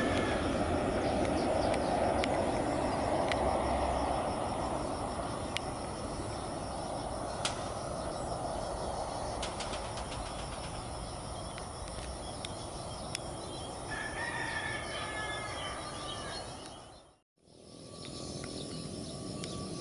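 Boeing 737 jet engines rumbling as the airliner lands, loudest at first and fading. A drawn-out bird call about fourteen seconds in. After a cut near the end, a steady whine from an approaching ATR 72 turboprop.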